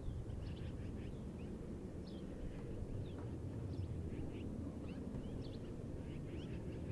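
Birds calling: many short, scattered chirps, over a low steady rumble.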